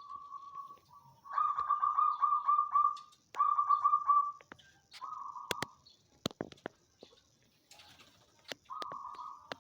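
Zebra dove (perkutut) cooing in its rolling, bubbling song: several phrases with short pauses, the longest about two seconds, with a few sharp clicks between phrases around the middle.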